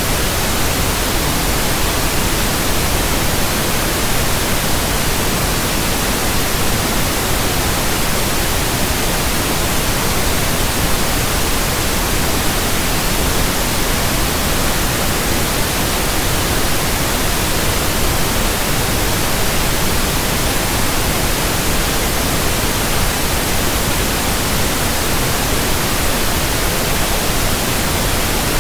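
Steady synthetic pink noise: an even, unbroken hiss that spans all pitches, with no tones or changes.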